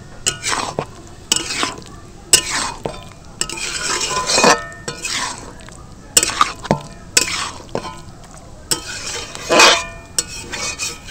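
A flat metal spatula stirring and folding boiled pasta through a thick white sauce in a metal kadai. It makes irregular wet scrapes and clinks against the pan, about one a second.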